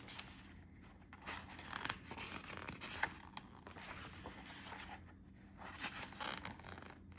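Faint rustling and scraping of paper and card being handled, with a few light ticks, as printed photos are shuffled and turned over.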